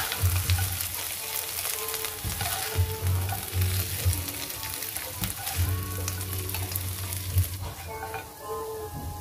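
Stir-fried kepayang seeds with chilli and anchovies sizzling in a non-stick pan, with the scrape and clatter of a spatula stirring and scooping them; the sizzle thins out near the end.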